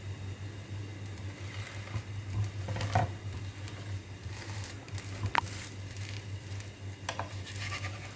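Rava dosa sizzling faintly in a little oil on a hot pan, with scattered small crackles over a steady low hum.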